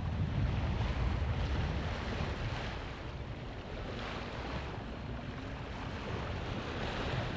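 Wind buffeting the microphone as a low rumble, over the wash of waves around a sailboat, surging and easing every second or two.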